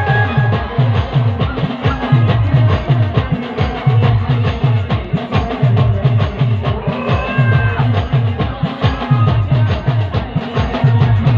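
Band music without vocals: a fast, steady drum beat of deep drum strokes, about three a second, under a keyboard, with a short melody line near the middle.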